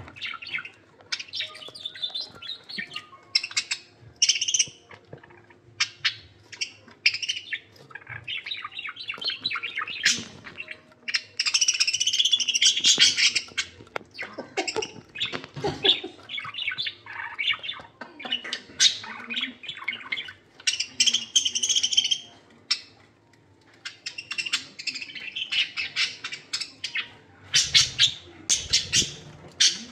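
Pet budgerigars chirping and warbling in busy, uneven chatter, with louder spells of warbling about a third of the way in and again past the middle.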